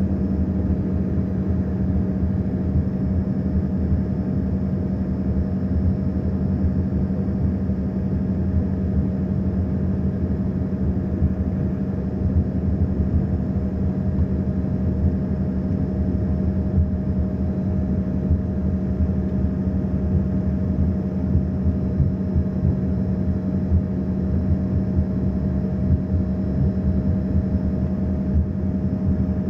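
Passenger airliner's engines droning steadily, heard as one unchanging low hum with a fainter, higher steady whine over it.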